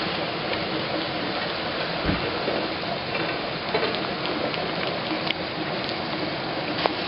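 Steady hiss of rain falling on flooded pavement and standing water, with a few small ticks and a low knock about two seconds in.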